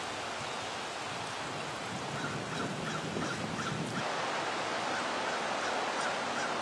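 Steady rushing of floodwater, a continuous even wash of noise that grows slightly louder about four seconds in.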